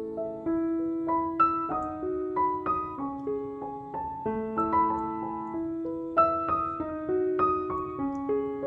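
Background music: a gentle piano melody of single notes and soft chords.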